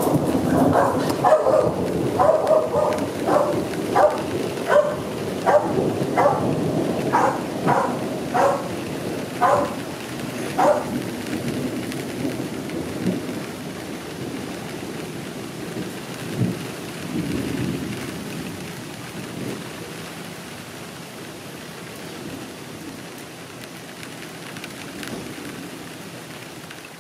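Steady rain with a long roll of thunder that slowly fades away. Over the first ten seconds or so a dog barks in a steady run of short barks, then stops.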